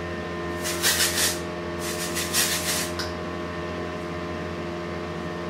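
Aerosol texturizing hairspray being sprayed onto curled hair in two hissing bursts: a short one about half a second in, then a longer, pulsing one around two to three seconds in.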